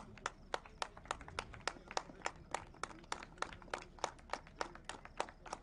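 Steady rhythmic hand clapping, sharp claps about three and a half times a second keeping an even beat.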